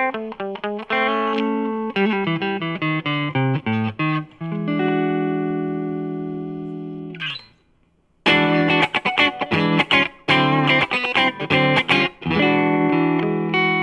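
1980 Aria Pro II ST-500D Stratocaster-type electric guitar with DiMarzio FS-1 "Fat Strat" pickups, played in quick runs of single notes. Each run ends on a chord left to ring and fade, twice, with a short scrape and a brief pause between.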